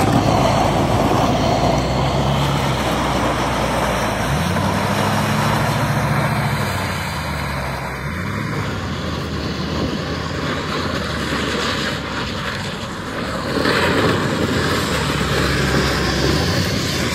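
Pickup truck engine revving up and falling back several times while it drags a jon boat with a rider in it across the ground, over a steady rushing noise.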